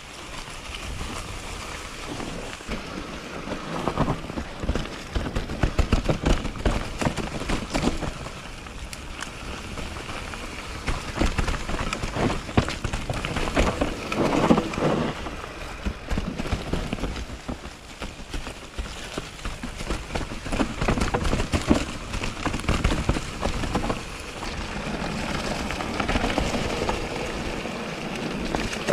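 Mountain bike rolling down a dry, leaf-covered dirt trail: tyres crackling and crunching through fallen leaves, with irregular clicks and rattles from the bike over roots and rocks, louder in bursts on rougher stretches. A low wind rumble on the microphone runs underneath.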